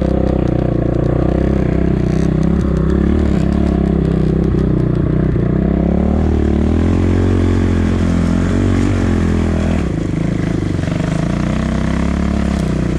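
250 cc enduro motorcycle engine running under load while being ridden over snow, its revs rising and falling with the throttle and easing off about ten seconds in.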